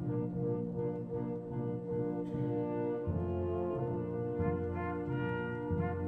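Slow, brass-led music: horns holding sustained chords over a low bass line that changes note about every second and a half.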